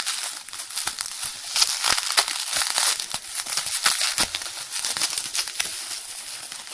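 Plastic wrapping on a CD album being crinkled and pulled at while someone works it open, giving many irregular sharp crackles throughout.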